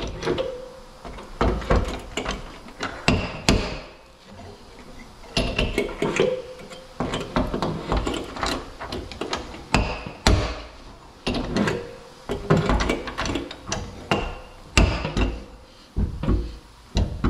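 Slide hammer pulling on pins spot-welded to a truck's steel door skin, its sliding weight knocking against the stop to work a dent out gradually. Repeated sharp knocks come in short runs with brief pauses.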